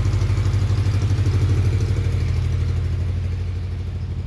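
Engine idling steadily, with a fast even pulse; its level drops a little about three seconds in.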